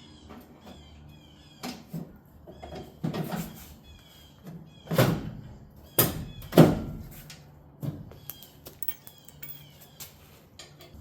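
Several heavy knocks and clunks of metal parts being handled and set down, the loudest about five seconds and six and a half seconds in, with lighter clicks between them.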